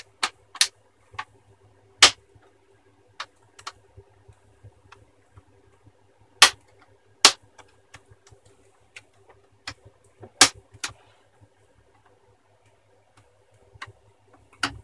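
Plastic screen bezel of a Sony Vaio laptop being pried off with a flat tool, its clips snapping loose: a series of sharp clicks at uneven intervals, a few of them much louder than the rest.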